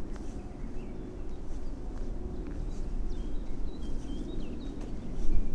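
Small birds calling in short, high chirps in woodland, over the footsteps of someone walking a forest path and a low rumble that swells near the end.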